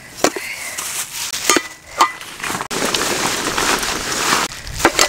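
Rustling and crinkling of a fabric stuff sack being handled and unpacked, with a few sharp clicks and knocks; the rustle grows dense and loud past the middle.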